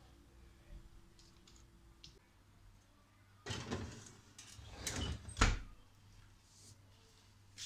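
A cake pan scraping and clattering as it is slid onto the oven's wire rack, then the oven door shut with a single loud knock.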